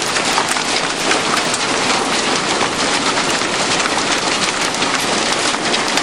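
Heavy hail falling, a dense, steady clatter of many stones striking hard surfaces, nickel-sized hailstones battering cars.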